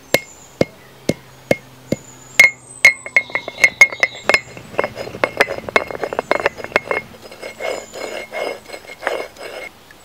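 Turmeric root being pounded and crushed on a stone grinding slab with a stone pounder: sharp stone-on-stone knocks, spaced at first and then quicker, giving way about halfway through to rapid crushing and rubbing strokes as the root breaks into pieces.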